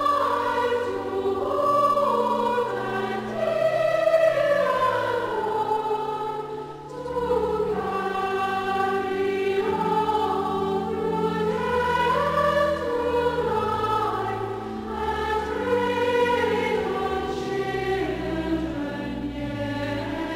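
Church congregation singing a hymn in harmony, with held low notes beneath the melody.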